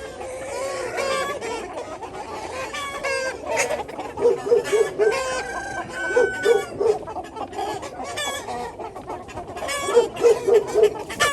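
A flock of chickens clucking and calling over one another, with short runs of quick, rapid clucks repeated several times.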